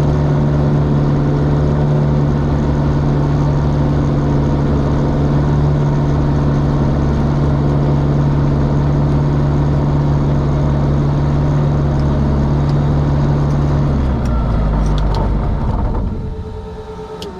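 RV-12iS's Rotax 912 iS engine running steadily. About 14 seconds in its note changes, and around 16 seconds it winds down and stops, as at engine shutdown, leaving a faint hum and a few clicks.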